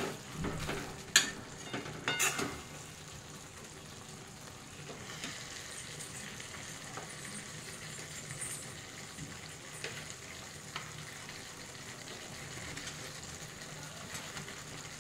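A metal spatula scraping and knocking against a metal kadhai for the first couple of seconds, then a steady soft sizzle of pea masala cooking in the pan.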